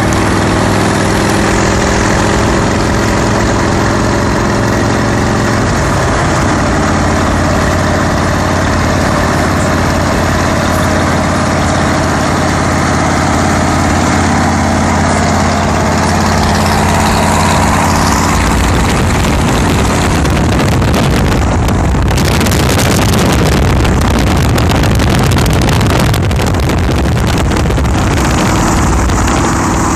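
Harley-Davidson Rocker's V-twin engine running steadily at highway cruising speed, mixed with road noise. For a few seconds late on, gusty wind noise on the microphone breaks in.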